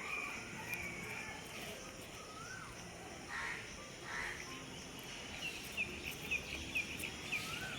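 Birds calling in the background: a couple of rising-and-falling whistled notes, two short rough calls midway, and a quick run of short chirps, about three or four a second, near the end, all fairly faint over a steady outdoor hiss.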